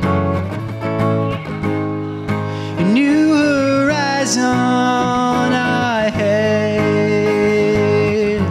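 Acoustic guitar strummed steadily with a man singing live; his voice slides up into long held notes about three seconds in.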